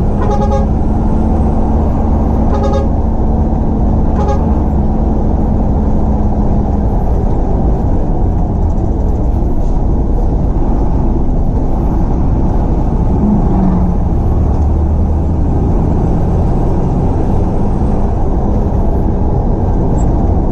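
Jaya Utama Indo bus horn sounding a few short blasts in the first four seconds or so, over a steady low rumble of engines that runs throughout.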